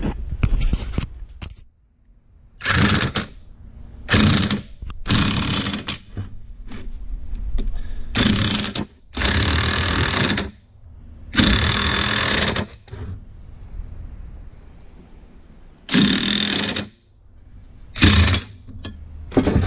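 Impact wrench hammering in about eight bursts of half a second to a second and a half each. It is running a lug nut down a new wheel stud to pull the stud into the axle flange.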